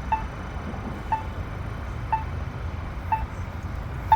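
Polara N4 accessible pedestrian signal push button sounding its locator tone: a short, sharp tick once a second, over a low traffic hum.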